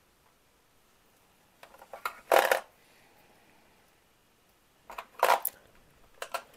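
Wooden board-game tokens clacking against one another as stacks of them are handled and set into the box insert: three short runs of clicks, about two, five and six seconds in, the first the loudest.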